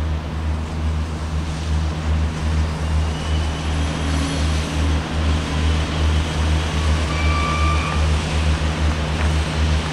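SNCF X 72500 diesel multiple unit moving slowly past, its diesel engines running with a strong, pulsing low hum. A few brief high squeals come in between about three and eight seconds in.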